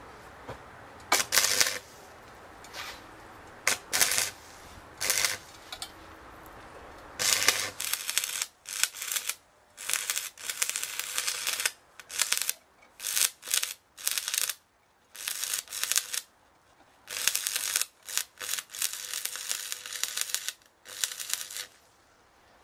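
Stick-welding arc crackling in a string of short bursts as new nuts are tack-welded onto a steel angle grinder guard; the bursts come closer together and run longer from about a third of the way in.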